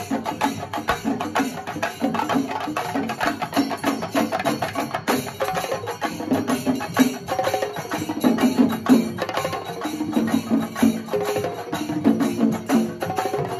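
Chenda melam: a group of chenda drums beaten fast with curved sticks, many strokes a second in a dense, continuous rhythm, with ilathalam hand cymbals ringing along.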